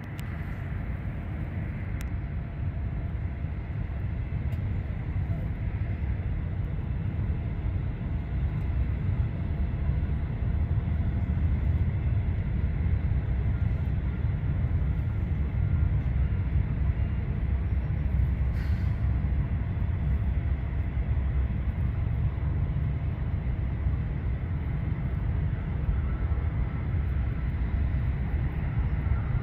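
Distant jet engine rumble from a Southwest Boeing 737 airliner on final approach, a low steady roar that slowly grows louder over the first ten seconds and then holds.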